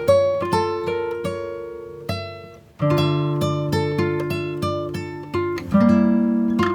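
Background music: fingerpicked acoustic guitar, each plucked note ringing and fading, with a short pause about two and a half seconds in before the picking resumes.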